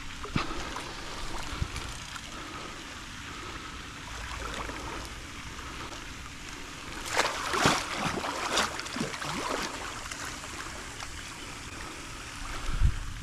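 Pond water splashing and sloshing around a hooked alligator as it is worked toward the bank with a catch pole. There is a cluster of louder splashes about seven to nine seconds in.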